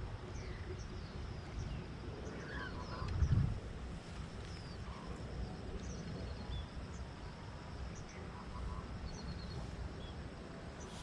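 Small birds chirping and trilling repeatedly in short calls over a steady low rumbling noise, with one louder low thump a little over three seconds in.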